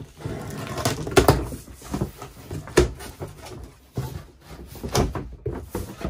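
Cardboard box being opened by hand: flaps pulled apart and folded back, with rustling and scraping of cardboard and a few sharp knocks, the loudest about a second in and again near three and five seconds.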